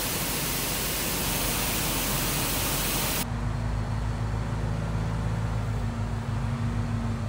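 Wheat pouring out of a hopper trailer's open bottom gate through the grate into the elevator pit: a loud, even hiss that cuts off about three seconds in. After that, the semi's diesel engine runs steadily, heard from inside the cab.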